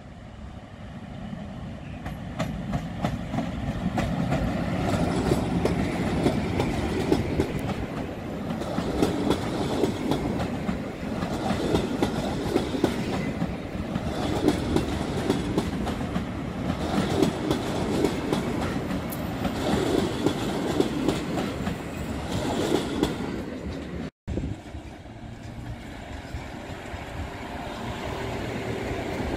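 Passenger train hauled by a PKP EP07 electric locomotive passing close by, growing louder as it approaches, its coaches' wheels clattering rhythmically over rail joints. Near the end the sound cuts abruptly to the quieter, steady running of a second passenger train hauled by an EU160 electric locomotive.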